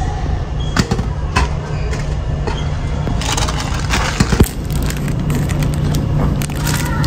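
Plastic bread wrapper crinkling and a vending machine's push-flap knocking as a packaged bun is pulled out of the outlet, most of it in a run of crackles about three to four seconds in, over the steady low drone of the ferry's engines.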